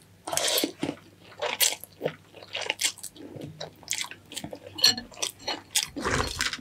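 A person eating close to the microphone: wet chewing and slurping, in many short, irregular sounds of uneven loudness.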